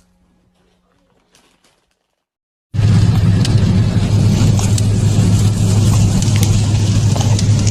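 Near silence, then about three seconds in a loud, steady motor-vehicle rumble with hiss cuts in suddenly and runs on unchanged.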